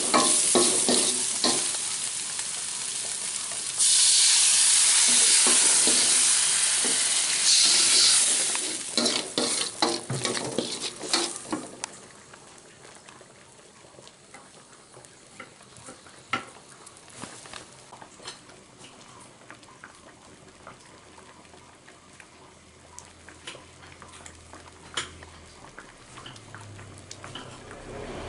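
Aromatics and dried anchovies sizzling in oil in an aluminium wok, stirred with a wooden spatula that scrapes and taps the pan. About four seconds in, liquid hits the hot oil with a sudden loud hiss that lasts several seconds. It then dies down to a quiet simmer with scattered light ticks.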